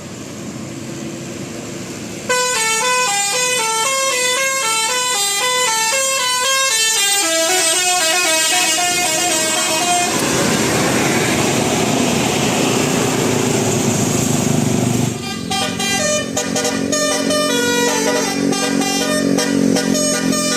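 A bus's Basuri telolet musical horn playing a melody of stepped notes, starting suddenly about two seconds in. Around the middle the tune gives way to a loud noisy rush for about five seconds, then the horn plays another tune over a clicking beat.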